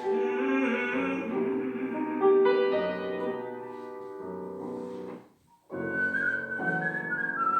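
Piano accompaniment of a song playing without the voice. It breaks off for a moment about five seconds in, then resumes with a high whistling line wavering over it near the end.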